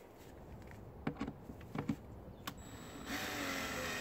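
Screwdriver tightening the long T25 screws that hold the air filter housing cover: a few light clicks, then about three seconds in a steady mechanical whirring rasp for about a second and a half as a screw is driven home.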